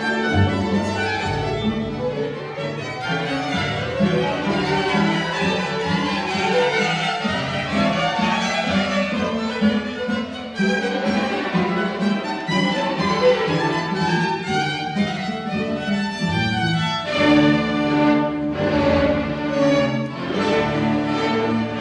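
Chamber string orchestra playing classical music live: violins over cellos and basses, continuous and busy throughout.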